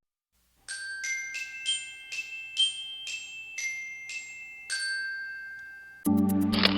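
Glockenspiel-like melody of about ten bell-like struck notes, roughly two a second, the last one left ringing. Near the end a louder backing music track with low chords starts, with a short noisy burst over it.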